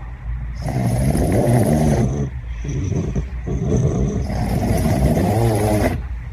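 A sleeping cat snoring loudly, long rattling snores one after another with a short break about two seconds in, and a thin whistling tone in the middle.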